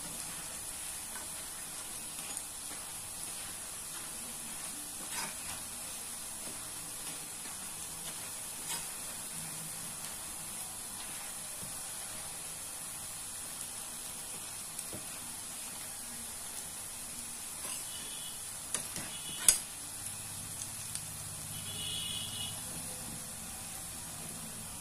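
Onion pakodi deep-frying in hot oil, a steady sizzle as the fritters fry until red and crisp. A metal ladle stirs them, giving a few light clicks, with one sharp click about three-quarters of the way through.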